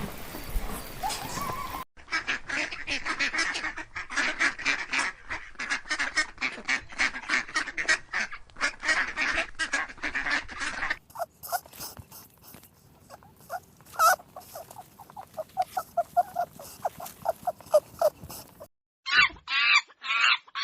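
Ducks quacking in rapid succession: a dense, overlapping flock for about nine seconds, then a sparser run of quick quacks. Near the end chickens start clucking.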